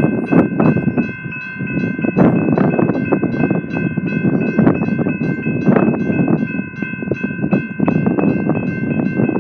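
Railroad grade-crossing bell ringing rapidly, about four strikes a second, over a loud, steady rushing noise.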